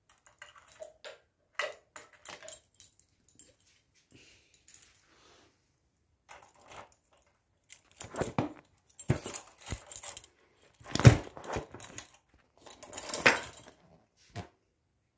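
A metal key ring jangling and keys clicking in the locks of a 1982 Suzuki TS185 motorcycle: light clicks and jingles at first, then louder rattling and knocks as the seat is unlocked and taken off, with the loudest knock about eleven seconds in.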